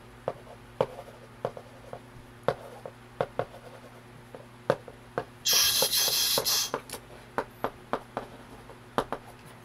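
Irregular sharp clicks, a few every second, over a low steady hum, with a loud hiss lasting about a second just past the middle.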